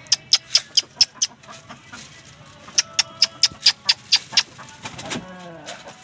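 Chickens pecking scattered grain off a concrete floor: two quick runs of sharp taps, about five a second. A hen gives a short cluck near the end.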